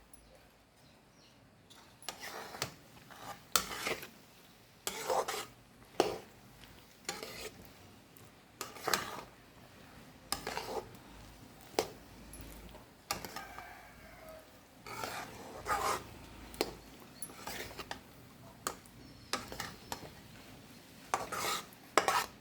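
Spoon stirring and scraping peanuts through thick jaggery syrup in a pan, in irregular strokes about once a second.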